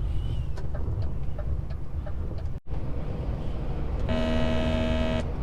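Steady low drone of a DAF XF truck's engine and tyres heard from inside the cab, cutting out for an instant about halfway through. Near the end a steady horn tone sounds for about a second.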